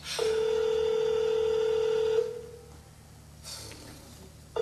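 Telephone ringing, played as a stage sound effect: a steady electronic buzzing ring that starts just after the beginning and stops about two seconds in. The next ring begins right at the end.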